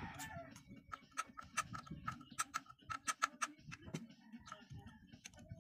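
Sharp metallic clicks from hand tools working on a small motorcycle engine, several a second in a quick run through the middle, each with a short ring.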